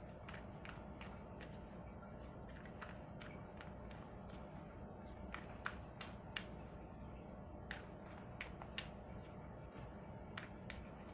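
Tarot deck being shuffled by hand: irregular soft clicks and slaps of the cards, over a faint steady hum.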